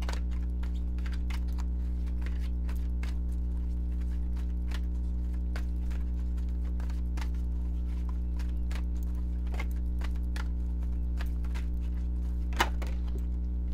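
Irregular light clicks and taps, a few a second, with one sharper snap near the end, typical of tarot cards being shuffled and handled, over a steady low hum.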